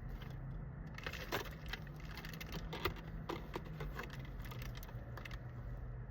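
Light clicks and rustles of small items and packaging being handled, scattered irregularly over a low steady hum.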